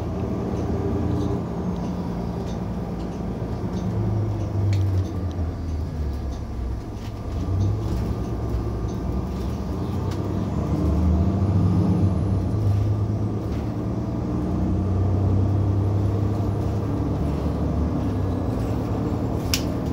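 Inside a city transit bus: the bus's engine and drivetrain rumbling as it drives, the engine note rising and falling. A single sharp click near the end.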